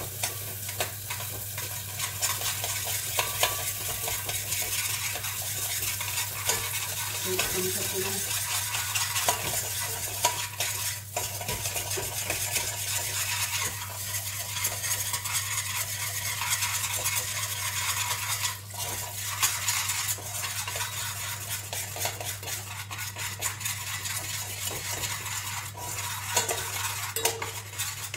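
A spoon stirring and scraping in a hot pan of browned sugar with butter just added for toffee sauce: a continuous sizzle with frequent clinks of the spoon against the pan. A steady low hum runs underneath.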